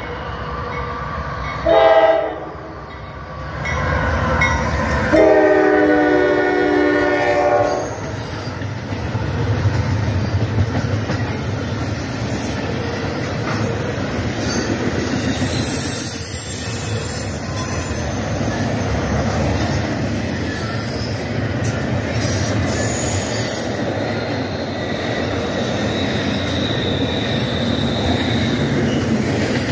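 CSX freight train's locomotive air horn sounds a short blast about two seconds in and a longer blast from about five to eight seconds. The horn rings out over the diesel locomotives. After it, the double-stack container cars rolling past give a steady rumble.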